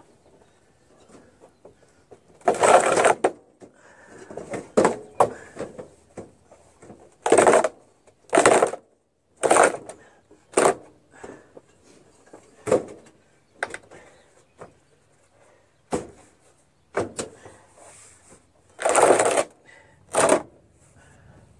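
Base of a roughly 450-pound Generac 22 kW standby generator scraping across a concrete pad as it is shoved along by hand. The scrapes come in about fifteen short, irregular strokes, the loudest about three seconds in and near the end.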